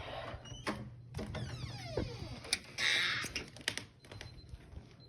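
Clicks and handling noises, then a loud short hiss about three seconds in. Near the end a faint, thin, high-pitched electronic beep sets in and keeps going with brief breaks: the beeping whose source is not known.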